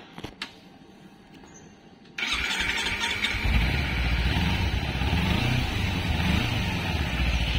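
Kawasaki Versys-X 250's parallel-twin engine starting about two seconds in after two short clicks, then running with its speed rising and falling a little before settling; the seller calls the engine very smooth.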